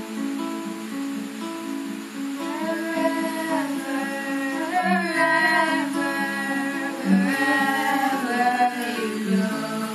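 Acoustic guitar strummed in a steady chord pattern, with voices singing along from about two and a half seconds in.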